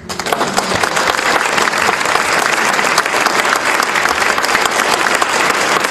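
Large audience clapping loudly, breaking out all at once and then keeping up steadily.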